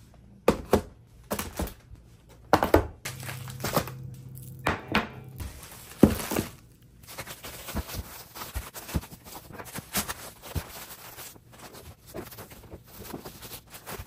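Food being packed into a foil-lined insulated cooler bag on a stone countertop: a plastic bottle and frozen packs are set down with sharp knocks, several in the first six seconds, followed by quieter, continuous crackling as the foil bag is handled.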